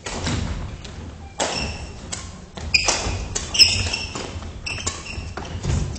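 Badminton doubles rally on a wooden gym court: several sharp racket hits on the shuttlecock, shoes squeaking and feet thudding on the floor, echoing in a large hall.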